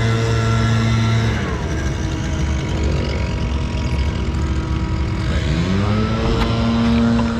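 Scag Windstorm stand-on blower running at a steady high speed. A little over a second in, its pitch falls away as the throttle comes down, then it glides back up to full speed near the end.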